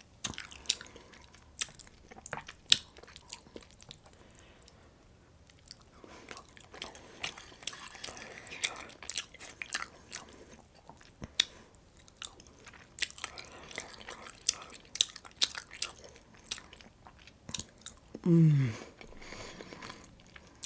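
Chewing and crunching of breakfast food, with many short wet mouth clicks and crackles at an uneven pace. Near the end, a short hummed voice sound falling in pitch is the loudest thing.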